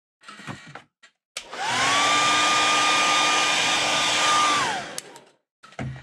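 Handheld hair dryer clicked on, its motor whine rising as it spins up, blowing steadily for about three seconds to dry fresh airbrush paint, then clicked off, the whine falling away. A few light handling knocks come before and after.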